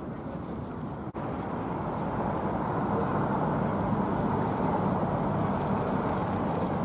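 Steady noise of city traffic, growing a little louder about two seconds in, with a momentary break in the sound about a second in.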